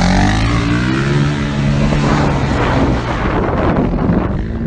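Small motorbike-type engine (a dabbab) being ridden, its pitch rising and falling with the throttle over a steady noisy rush.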